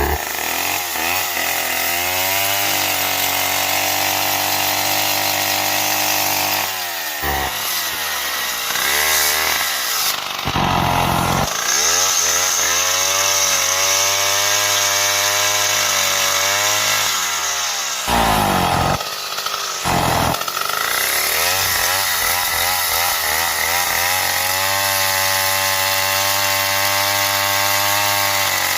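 Stihl MS 070 two-stroke chainsaw running while sawing wood. Its engine pitch rises and falls repeatedly as it is throttled, holding lower for several seconds at a time under the load of the cut.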